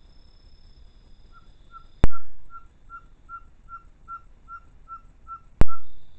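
A bird's clear whistled note repeated evenly, about two and a half times a second, a dozen times in a row. Two loud sharp clicks cut in, one before the series and one at its end.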